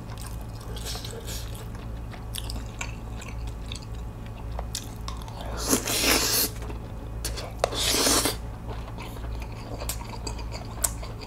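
Close-up eating sounds of spicy bibim noodles with whelks: two loud slurps of noodles about six and eight seconds in, with wet chewing and small mouth and utensil clicks around them.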